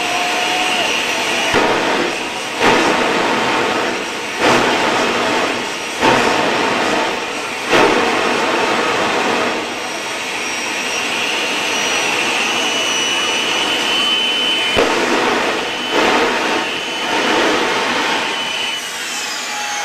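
Turbojet engine mounted on a pickup truck running at a steady high whine over a loud rush of exhaust, surging louder in short bursts several times. Near the end the whine starts to fall as the engine spools down.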